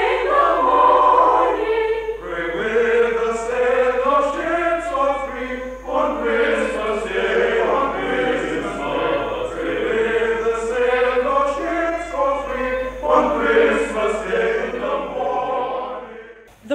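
A choir sings a carol in long phrases with short breaks between them, then dies away just before the end. It is an archival 1964 recording with a dull, narrow sound and a low steady hum underneath.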